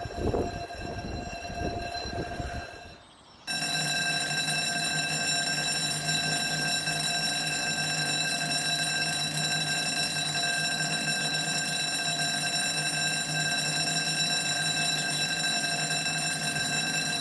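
For the first three seconds a train passing, then a cut to a level crossing's electric warning bells ringing steadily and without a break, the audible warning that the crossing is closing for an approaching train.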